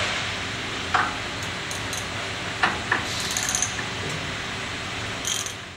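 A socket wrench with a large socket is fitted and turned on the brass seat of a pneumatic actuator held in a vise, giving a few sharp metal clicks and a quick run of small ticks about three seconds in, over a steady background hiss.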